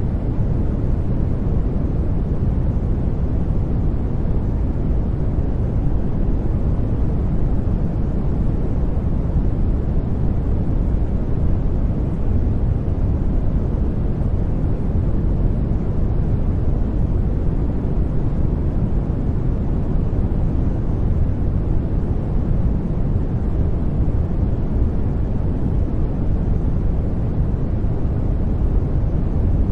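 Steady synthetic noise track of the white-noise kind used for sleep and subliminal audio, deep-sounding with most of its energy low down, unchanging throughout.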